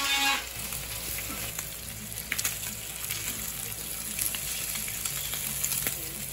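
Bacon sizzling steadily in a non-stick frying pan on a gas hob, with a few sharp clicks as tongs turn the rashers. A guitar music track cuts off just after the start.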